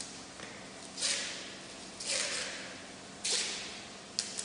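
Cavolo nero (Tuscan black cabbage) leaves being torn from their tough stems by hand: three short tearing sounds about a second apart, with a couple of light clicks.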